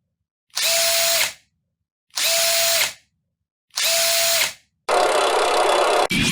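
Buzzing, drill-like sound effect in short bursts of under a second, evenly spaced, four times. A longer burst follows and is cut off by a sharp click near the end.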